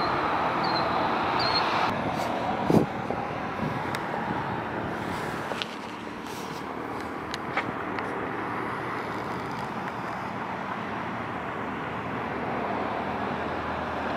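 Road traffic passing on a wide open road: a steady hiss of tyres and engines, louder in the first few seconds and then easing off. A single sharp knock comes just before three seconds in.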